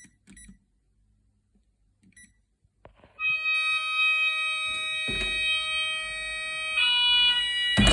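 Texecom burglar alarm keypad beeping briefly a few times as the code is keyed in to set the system. About three seconds in, a loud steady electronic tone starts: the exit tone sounding while the system sets. Its pitch pattern shifts near the end, and two dull thumps come over it.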